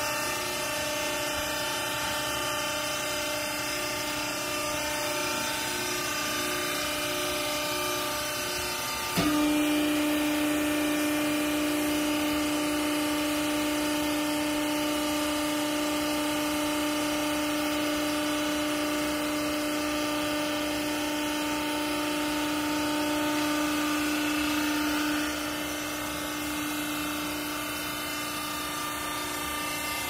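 Vertical hydraulic clothing baler's pump motor running with a steady machine whine. About nine seconds in there is a click and the tone steps up louder, holding steady until near the end, when it drops back.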